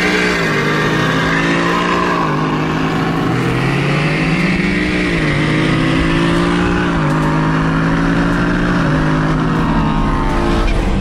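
Twin-turbocharged Ford Mustang Shelby GT350's 5.2-litre flat-plane-crank V8 heard from inside the cabin, pulling hard under acceleration. Its pitch climbs and drops back sharply about five times as it goes through the gears.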